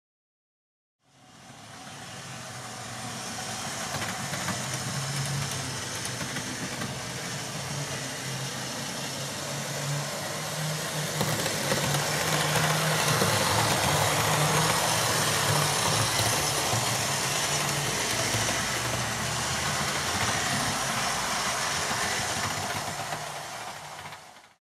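OO gauge model Class 37 (Class 97/3) locomotives running on the layout: a steady motor hum under a wide rumble and hiss of wheels on the track. It starts about a second in, is loudest midway as the train passes nearest, and stops just before the end.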